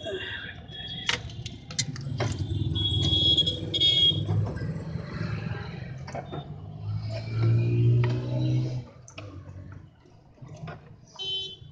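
A motor vehicle engine running with an uneven rumble that cuts off about nine seconds in. High, steady horn toots sound in the first few seconds, and scattered clicks of parts being handled.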